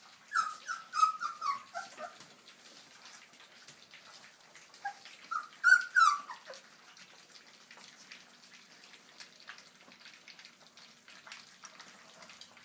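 Cane Corso puppies whimpering and yelping: a quick run of short high whines in the first couple of seconds and a louder cluster around six seconds in, some dropping in pitch. Under them, a steady faint patter of wet lapping and smacking as the puppies eat from a shared pan.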